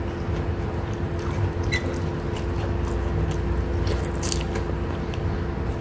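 Close-up mouth sounds of a person eating chicken rice by hand: chewing with scattered soft, wet clicks, over a steady low hum.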